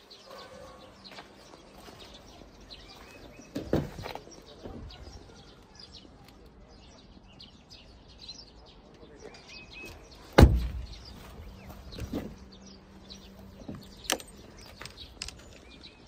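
BYD Seagull's doors and tailgate being opened and shut: a thump about four seconds in, a solid door slam about ten seconds in (the loudest sound), and a sharp click a few seconds later. Birds chirp in the background.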